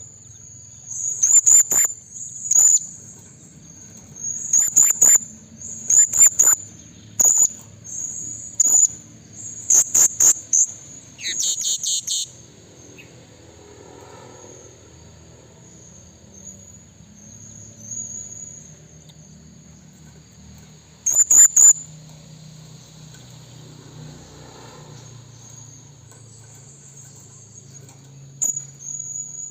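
Blue-crowned hanging parrot (serindit) giving short, shrill, high-pitched calls in quick runs through the first dozen seconds, then once more about two-thirds of the way in. A steady high-pitched drone runs underneath.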